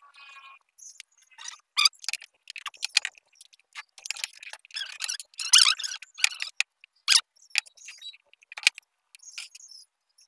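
Scattered clicks, taps and metallic rattles from a steel tape measure and wooden blocks being handled on a wooden workbench. A denser rattling stretch comes about four to six seconds in.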